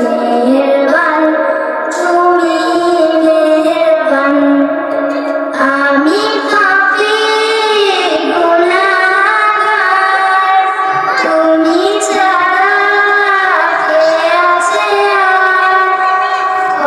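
A young girl singing a Bangla gojol (Islamic devotional song) solo and unaccompanied into a handheld microphone, in long held notes that bend and waver.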